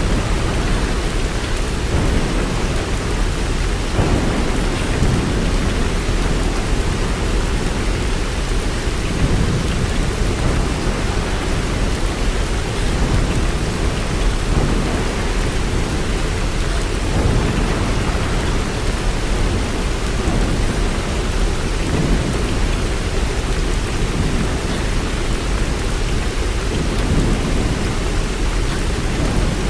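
Steady rain falling, a dense even hiss, with a low rumble underneath that swells and fades.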